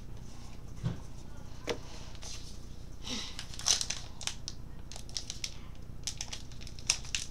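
Trading-card pack wrapper crinkling and tearing as it is opened by hand: a few light clicks at first, then a run of sharp crinkles from about three seconds in.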